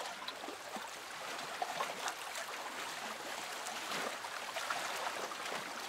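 Sea water lapping and splashing in small waves: a steady hiss with little splashes throughout.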